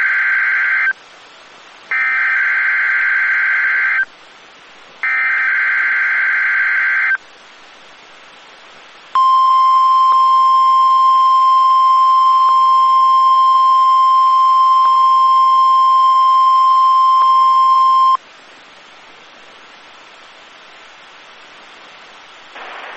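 NOAA Weather Radio test signal heard over a radio. The SAME digital header ends one screeching data burst and sends two more, each about two seconds long with short hissy gaps. About two seconds later the steady single-pitch 1050 Hz warning alarm tone sounds for about nine seconds and cuts off abruptly.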